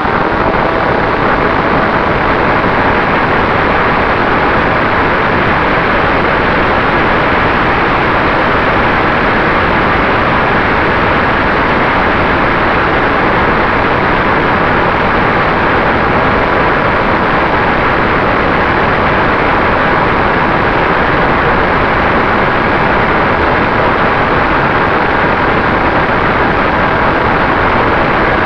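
Loud, steady rush of airflow and motor noise on the onboard camera of an FPV aircraft in flight, with a faint steady whine.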